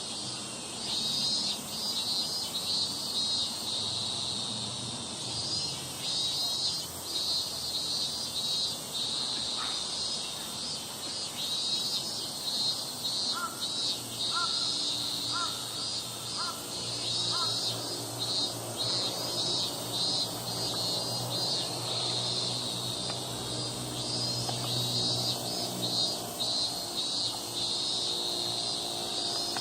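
A chorus of chirping crickets and other insects, rapid pulsing trills with a steady high-pitched buzz above them. A low steady hum joins about halfway through, and a few short high pips sound briefly just before it.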